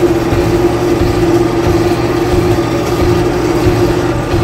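Belarus tractor's diesel engine running steadily on the move, heard from inside the cab: a constant low rumble with a steady droning tone over it.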